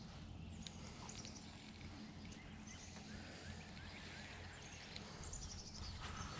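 Quiet outdoor ambience: a faint steady low hum under a light hiss, with a few soft clicks and faint high chirps.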